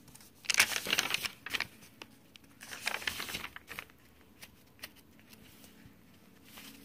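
Paper pages of a handmade junk journal being turned by hand: two papery rustles, each about a second long, followed by a few faint light ticks of paper handling.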